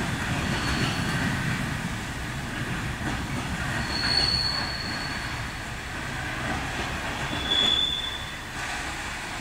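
Freight train of bulk silo wagons rolling along the track: a steady low rumble of wheels on rail, with short high-pitched wheel squeals about half a second in, around four seconds in and again near seven and a half seconds in.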